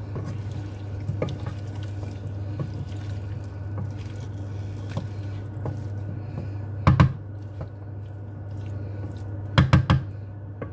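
Wooden spoon stirring chunky mixed vegetables through a wet tomato stew in a nonstick pan, with small wet clicks and scrapes over a steady low hum. A sharp knock about seven seconds in and three quick knocks near the end as the spoon strikes the pan.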